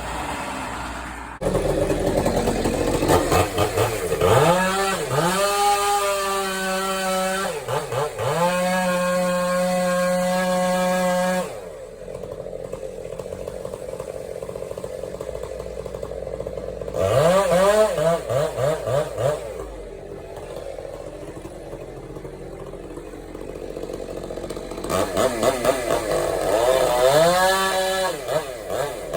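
Chainsaw being revved up again and again while cutting a tree. Each time it rises quickly to full speed, holds for a few seconds, then drops back to a lower, quieter running between cuts.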